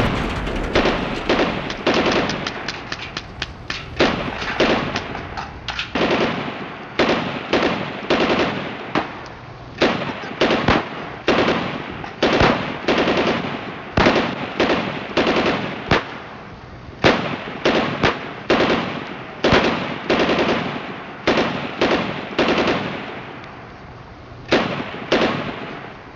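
A long, irregular series of loud sharp bangs, each trailing off, coming fast at first and then about one a second.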